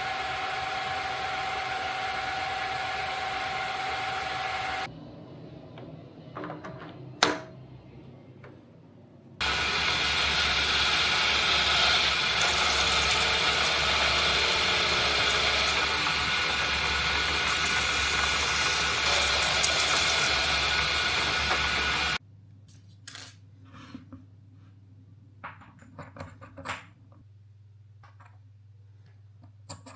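Metal lathe turning a rotor shaft. It runs steadily with a whine and stops about five seconds in, followed by a sharp click. It starts again, louder and noisier, for about thirteen seconds and stops abruptly, leaving scattered light metallic clicks over a low hum.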